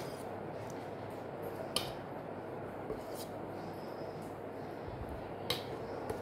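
Steel serving spoon clinking against steel bowls and a plate as curry is ladled out: a few sharp light clinks, the loudest about two seconds in and another near the end, over a steady low background noise.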